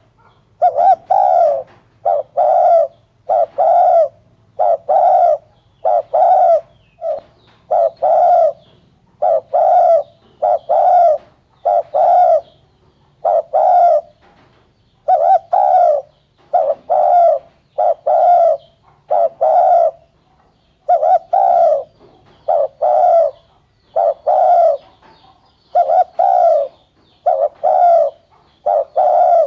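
Spotted dove cooing loudly and repeatedly: deep coo notes about one a second, grouped in short phrases with brief pauses between them.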